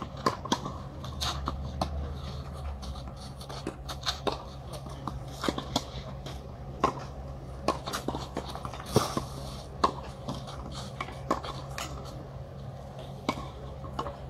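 Tennis rally on a clay court: a string of sharp racket hits and ball bounces, with shoes scuffing and sliding on the clay. A steady low hum runs underneath.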